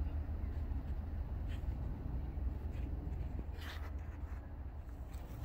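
Outdoor background: a steady low rumble with a few brief faint scratchy sounds a little past the middle.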